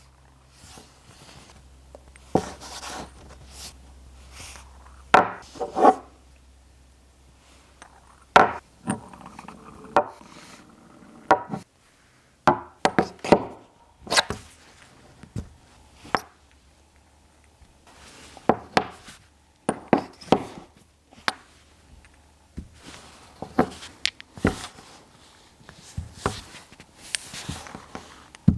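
Irregular knocks and clacks with rubbing as a strong magnet ball and a thick soft-copper tube are handled together, the ball knocking against the tube and its stand; a few of the louder strikes ring briefly.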